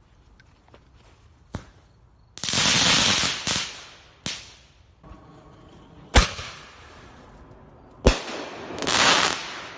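Backyard consumer fireworks going off: several sharp bangs, and two loud hissing, crackling stretches about a second long each.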